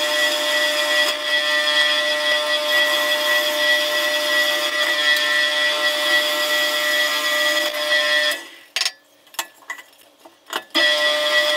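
Drill press running with a steady whine as its bit bores into a small wood block. Near the end the sound drops away for about two seconds, with a few light clicks, then comes back at once.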